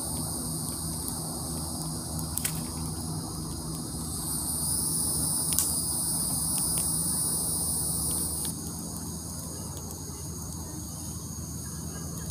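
Night chorus of crickets and other insects, a steady high trilling. A louder high trill joins about four seconds in and cuts off suddenly about halfway through, with a few sharp clicks and a faint low hum underneath.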